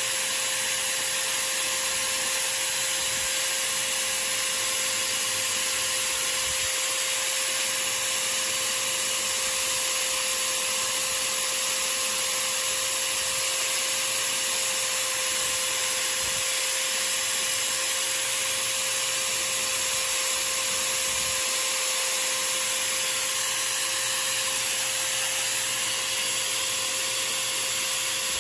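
Motor of a small power tool running steadily with a constant whine, spinning a slug blank in its chuck while sandpaper is held against the turning piece, adding a steady rubbing hiss.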